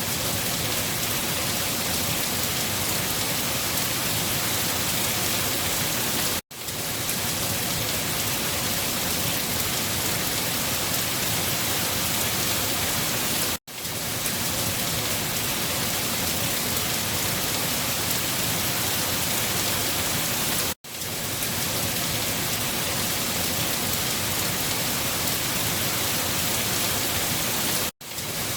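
Steady rain falling, an even hiss of drops. It cuts out for a split second about every seven seconds, four times in all.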